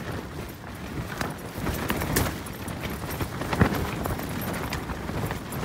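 Helsport Ringstind 2 Pro tent fabric flapping and snapping in strong storm gusts, over a steady low rumble of wind. The loudest snap comes about three and a half seconds in.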